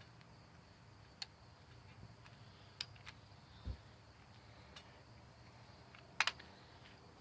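Faint, scattered clicks and taps of hand tools and bolts on an engine being assembled, with a loud quick double click near the end and a single dull low thump midway.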